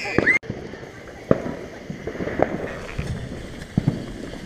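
Consumer fireworks going off: a steady hiss with several sharp, irregular pops and cracks.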